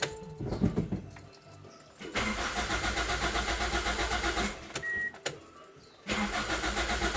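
Toyota Corolla Altis engine cranking on the starter without firing, in two tries of about two and a half seconds each, with an even pulsing rhythm. A short high beep comes just before the second try. This is a crank-no-start fault.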